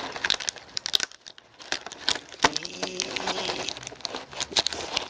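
Plastic packaging crinkling and crackling in quick, irregular clicks as hands work to free an accessory bag taped to it.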